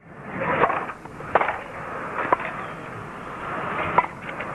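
Tennis rally: four sharp racket-on-ball hits about a second apart over a steady crowd murmur, which is loudest near the start.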